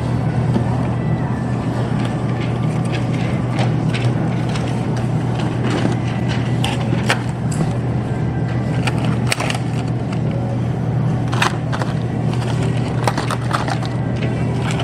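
Shopping cart being pushed across a store floor: a steady wheel rumble with irregular rattling clicks throughout.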